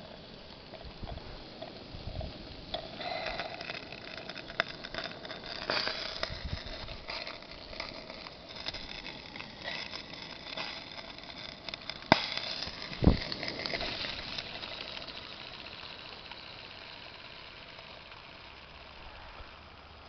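1/16-scale Regner live-steam Fowler ploughing engine model running: steam hissing, with irregular light metallic clicks and rattles and two sharper knocks a little past the middle. The sound eases off over the last few seconds.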